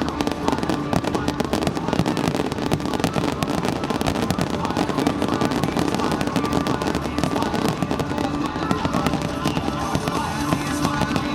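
Fireworks display: a dense, rapid run of bangs and crackles from many shells bursting, with music accompanying the show.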